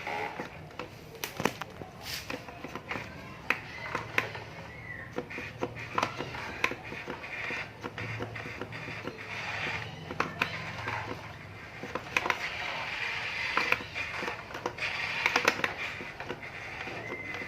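Radio-controlled model excavator working: a steady low motor hum under many irregular small clicks and scrapes, as of the bucket digging dirt.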